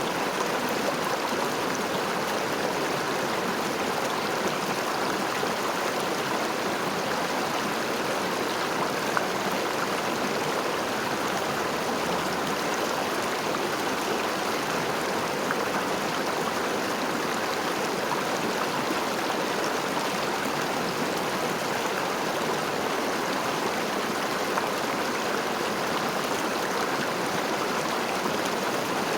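River water flowing over stones, a steady rushing and babbling with no change in level.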